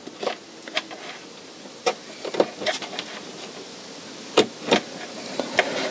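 Scattered small clicks and taps of wires being plugged into the terminal connector of a Victron Cerbo GX, a few irregular knocks, the sharpest about four and a half seconds in.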